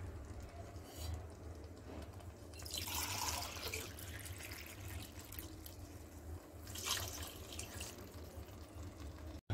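Water being poured into an aluminium pressure cooker over rice, heard in two faint spells, about three seconds in and again near seven seconds.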